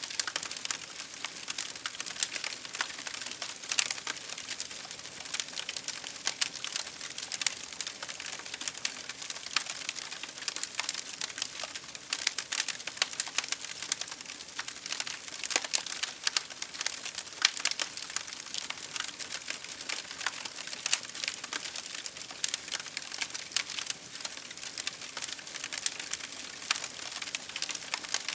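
Fire crackling: a dense, irregular run of sharp pops and snaps over a soft hiss, keeping on without a break.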